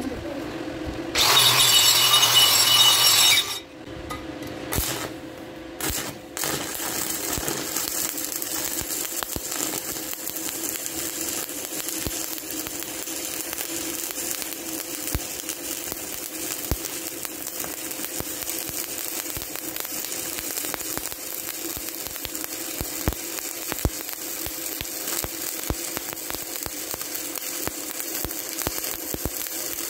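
Stick (SMAW) welding arc crackling steadily with many fine pops as the electrode burns in an overhead joint. It settles in after a loud, harsh noise of about two seconds near the start and a couple of short bursts.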